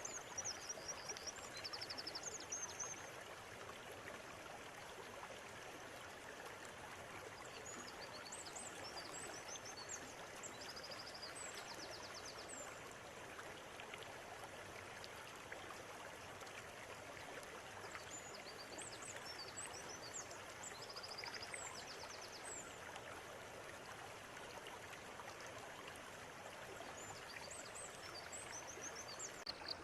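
Steady rush of a flowing river, with birds calling over it in bouts of high chirps and short rapid trills near the start, in the middle and again near the end.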